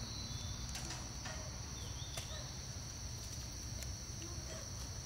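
Steady high-pitched chorus of insects over a low background rumble, with a few faint clicks.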